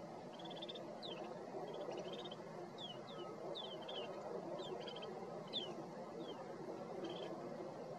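A flock of snow buntings calling: many short, falling whistled notes mixed with brief buzzy trills, overlapping at an irregular pace, over a steady low background rumble.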